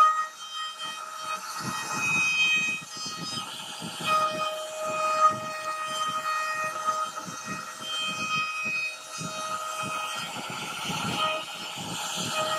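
CNC router spindle running with a steady high whine as its bit carves a relief pattern into a softwood panel, over the irregular rasp of the bit cutting the wood.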